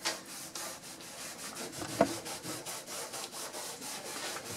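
Stain rag rubbing over birch plywood in quick back-and-forth wiping strokes, about four a second, as stain is worked into the wood. A single sharp tap about two seconds in.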